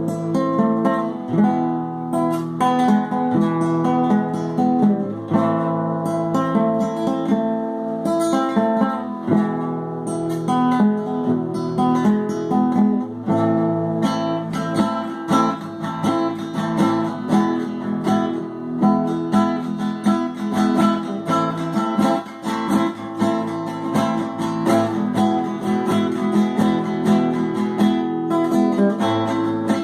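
Acoustic guitar music, plucked and strummed notes in a continuous piece.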